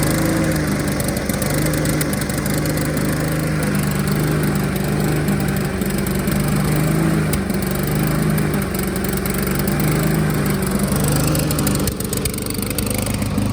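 Honda HRR216 lawn mower's single-cylinder engine running, its speed rising and falling every second or two, then dropping lower near the end. This is the fluctuating idle that goes with its auto-choke fault.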